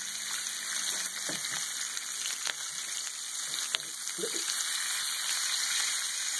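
Bacon strips frying in their rendered grease on an electric griddle: a steady sizzling hiss with crackle, and a couple of sharp grease pops near the middle.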